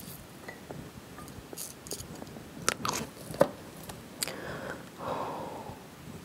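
Chopsticks clicking a few times against the serving board as a thick slice of raw salmon sashimi is picked up, the sharpest clicks about three seconds in. A soft rustling noise follows.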